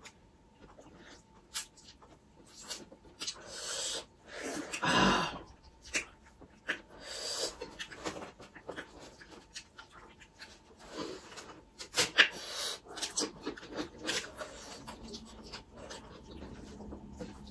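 Close-up eating sounds of people eating rice and curry with their fingers: chewing, lip smacks and short clicks. There is a louder, longer noisy stretch about five seconds in and a sharp click about twelve seconds in.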